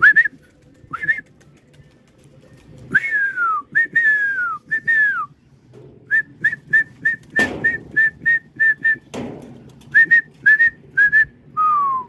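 A person whistling in short, sharp notes to call a flock of pigeons: a few quick rising chirps, several falling glides, then a fast run of about ten short whistles, more chirps, and one longer falling whistle at the end. A single knock sounds about halfway through.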